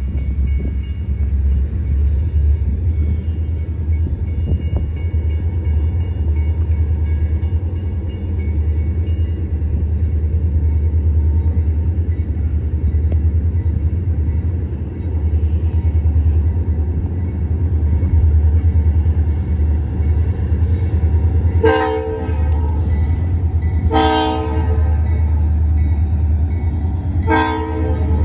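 Diesel freight locomotives approaching with a steady low engine rumble. In the last seven seconds the lead unit's multi-tone air horn sounds three blasts of about a second each, the third a little shorter, the standard signal for a grade crossing.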